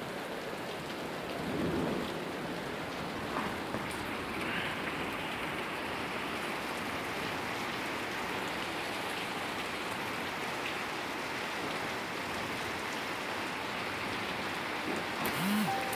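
Rain falling steadily, an even hiss of drops on hard surfaces.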